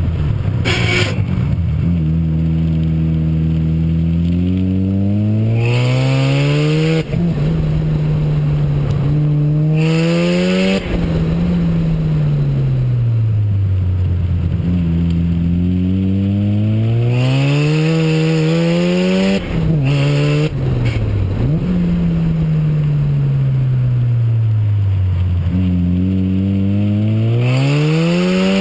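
Mazda RX-7's turbocharged 13B two-rotor rotary engine driven hard on track: its pitch climbs in several long pulls, each cut off suddenly by a gear change or lift, and falls away between them as the car slows for corners.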